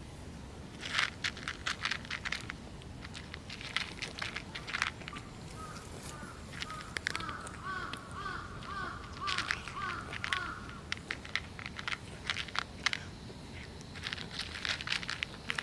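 Short crisp crunches and clicks throughout, and in the middle a bird calling a run of about ten repeated notes, roughly two a second.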